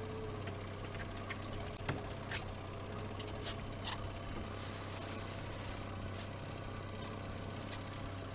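Boat engine running steadily at trolling speed, a constant low hum, with scattered light clicks and rattles in the first few seconds.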